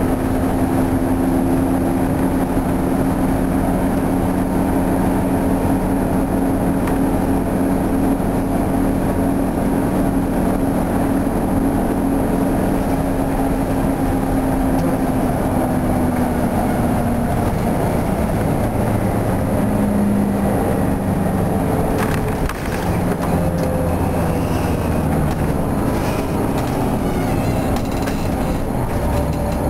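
Detroit Diesel 8V71 two-stroke V8 diesel of a 1972 Flxible New Look transit bus running steadily under way, heard from inside the bus. The engine note falls about halfway through as the bus slows, then changes again. There is one sharp knock a little past the two-thirds mark.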